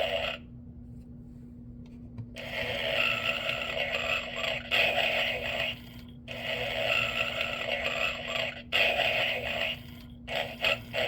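Gemmy Snoring Santa toy playing a recorded snore through its small speaker: long raspy snores with short pauses, then quicker short puffs near the end. A steady low hum runs underneath.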